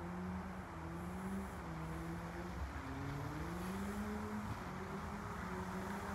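All-wheel-drive electric trike with three hub motors riding on packed snow: a low motor hum that wavers up and down in pitch over a steady rushing noise.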